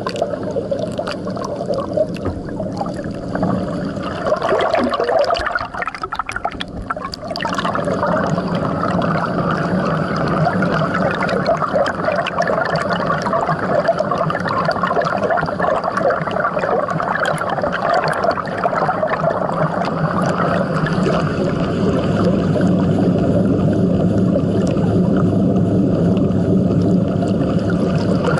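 Water rushing and gurgling past an underwater camera on the hull of a moving pedal boat, heard through the water. It is steady apart from a short dip about six seconds in.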